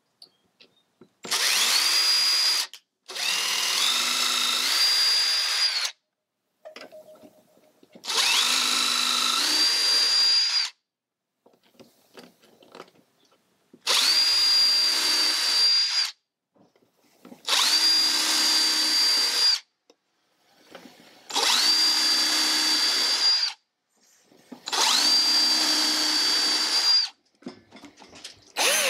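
Cordless drill boring pilot holes through a piano hinge's screw holes into wood: seven short runs of two to three seconds each, the motor's whine rising quickly to speed and holding steady, with pauses between holes.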